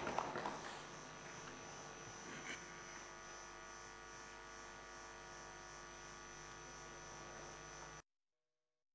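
Steady electrical hum made of several constant tones, with no speech. It starts under a fading wash of noise in the first half-second and cuts off abruptly to silence about eight seconds in.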